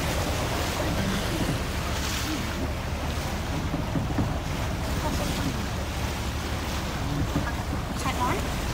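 Wind buffeting the microphone over a choppy sea, with water washing and splashing against the side of a small boat as dolphins break the surface beside it. The sound is a steady rush with a heavy low rumble.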